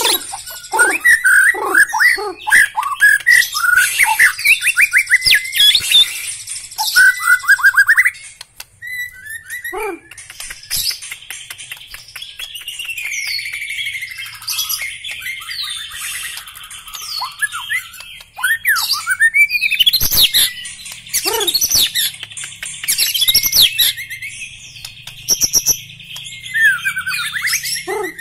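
White-rumped shama singing a varied song of rapid trills, whistled phrases and sharp notes, loud in the first eight seconds, quieter through the middle, and loud again from about nineteen seconds in.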